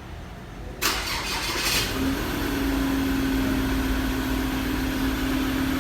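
Ford Ranger engine started remotely from the smart-key fob: the starter cranks for about a second, the engine catches, and it settles into a steady idle with a steady hum.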